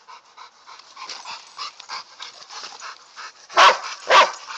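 Small chihuahua-type dog snarling in quick breathy pulses, about four or five a second, then letting out two loud sharp yips half a second apart near the end, a warning at a larger dog standing over it.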